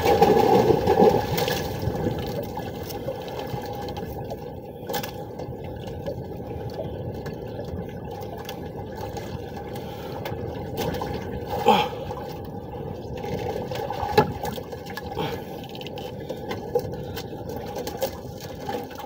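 Sea water sloshing and splashing against the hull of a small outrigger boat, with a few scattered knocks, the sharpest about halfway through.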